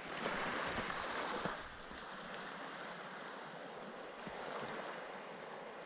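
Small waves washing on a shingle-and-sand shore: a louder wash for the first second and a half, then a steady soft hiss of surf.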